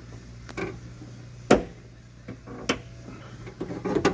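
A few sharp clicks and knocks from handling the rear door latch and its control cables, the loudest about a second and a half in and a quick cluster near the end, over a low steady hum.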